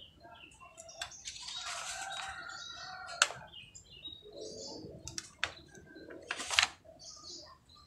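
Birds chirping in the background. A few sharp clicks, the loudest about three seconds in and another short, sharp burst near the end.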